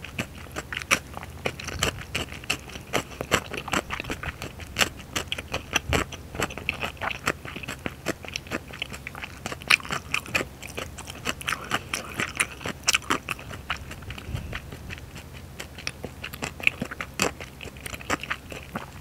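Close-up chewing of a mouthful of Buldak rabokki, firm rice cakes and chewy noodles in spicy sauce, heard as a steady run of small mouth clicks and smacks, several a second.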